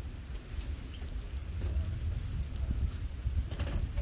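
Thunderstorm rain falling, with a steady low rumble underneath and scattered sharp ticks of drops hitting nearby.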